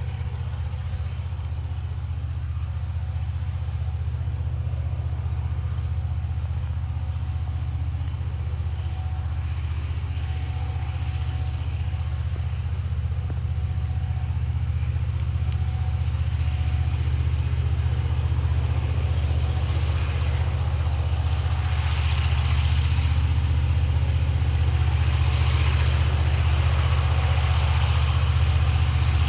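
Diesel engine of a TasRail coal train's locomotives running with a steady low hum as the train approaches, growing slowly louder. Only the second unit, 2051, is powering the train, the lead unit 2054 having failed. A rushing noise from the train builds over the last ten seconds.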